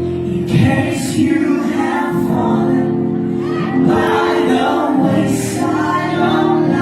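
Music: singing over held accompanying chords.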